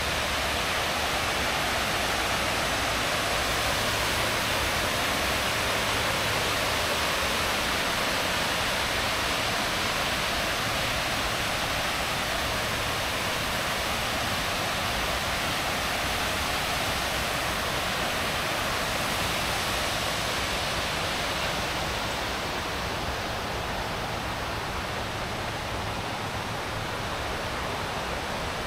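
Waterfall cascading over rocks: a steady rush of falling water, a little quieter and duller in the last few seconds.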